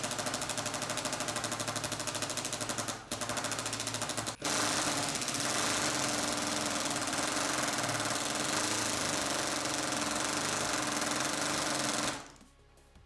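Ryobi P238 brushless 18-volt impact driver in second gear hammering continuously as it drives a long sheetrock screw, with two brief pauses early on. About twelve seconds in it stops suddenly as the smart battery's protection cuts the tool out.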